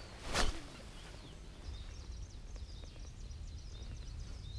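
Small birds twittering in rapid, high chirps from about a second and a half in. A brief loud whoosh comes about half a second in.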